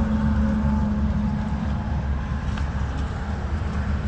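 A vehicle engine idling steadily: a constant low rumble with a steady hum above it.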